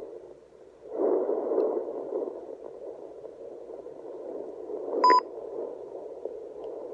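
Home fetal Doppler's speaker giving a rough, static-like hiss as the gel-coated probe is moved over a pregnant belly, still searching and not yet on the fetal heartbeat. The hiss drops out briefly just after the start and returns about a second in, and a short electronic beep sounds about five seconds in.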